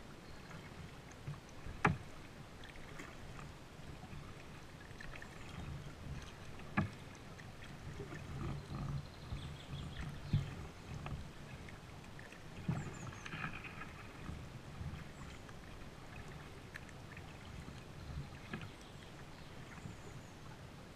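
Kayak being paddled on calm water: paddle strokes splashing and dripping, with water moving against the plastic hull. There are two sharp knocks, about two seconds in and again near seven seconds.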